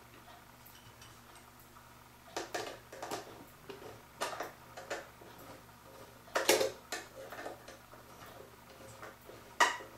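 Small screws clicking and scraping against the metal dial and bezel of a vintage kitchen clock as they are set back in by hand: a few irregular light metallic clicks starting about two seconds in, the loudest a little past halfway.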